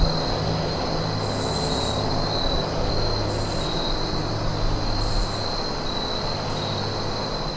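Insects trilling steadily at a high pitch, with three short, higher buzzing calls, over a low steady hum.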